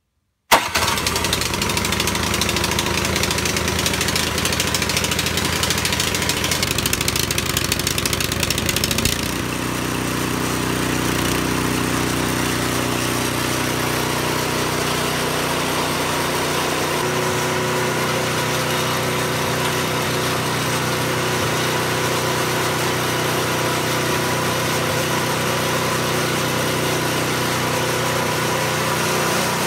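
PowerSmart DB765124 snow thrower's 212 cc four-stroke engine started cold on the electric starter with the choke closed, catching at once about half a second in and running. About nine seconds in its note changes, and it settles into a steady run.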